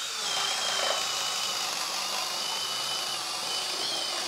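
Flex FX1271T 24V brushless hammer drill in second speed, turbo off, running steadily under load as an auger bit bores through stacked pine boards. There is a high, slightly wavering motor whine over the noise of the bit chewing wood.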